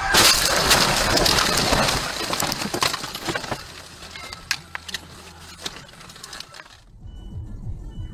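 A car crashing off the road into roadside bushes and trees: a loud crash of impact and crushing brush at the start, easing over about two seconds, then scattered snaps and cracks of branches against the body and cracked windshield, cutting off suddenly near the end.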